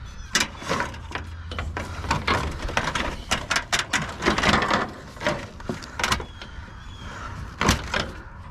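Junk being rummaged and shifted in a dumpster: a string of irregular knocks, clatters and rustles, with a low hum underneath for the first couple of seconds.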